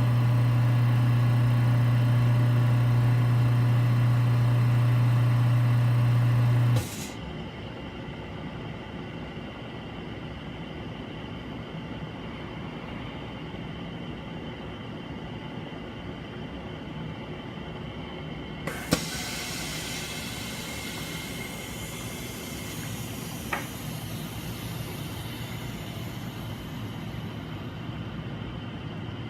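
Screen laminating press running with a loud steady hum that cuts off abruptly about seven seconds in. About nineteen seconds in there is a click, then a hiss of air that slowly fades.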